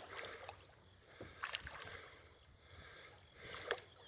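Quiet water lapping, with a few light clicks, the sharpest near the end.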